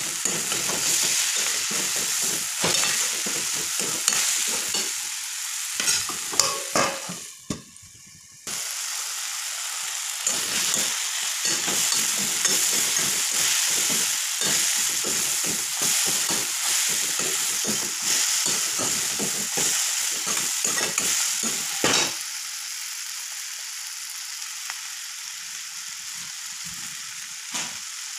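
Potato, flat-bean and cabbage sabzi sizzling in a steel kadhai while a steel spatula scrapes and turns it, with frequent scraping strokes against the pan. The sound briefly drops out about eight seconds in. About twenty-two seconds in the stirring stops and the steady sizzle carries on alone, quieter.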